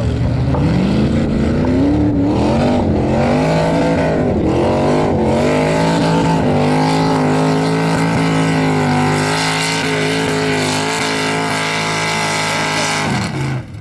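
Modified pulling tractor's engine at full throttle while dragging a weight-transfer sled. It revs up hard at launch, its pitch wavering up and down for the first few seconds as the tyres grab and slip. It then holds a high, steady pitch down the track and drops off sharply near the end as the throttle is cut.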